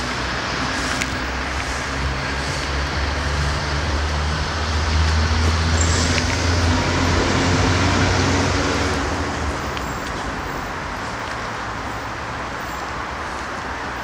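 A car's engine and tyre-on-road noise, a steady low hum that swells about a third of the way in and eases off again after about two thirds.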